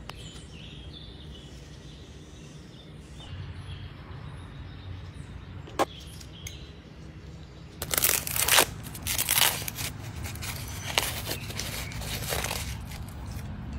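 Dry, papery tomatillo husks crinkling and crackling as they are peeled off by hand, in a run of loud bursts lasting about five seconds in the second half. Under it a low steady hum, with one sharp click a little before.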